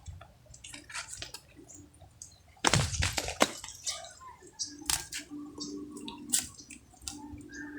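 Water splashing and dripping in scattered bursts, the loudest splash about three seconds in; a low steady hum joins about five seconds in.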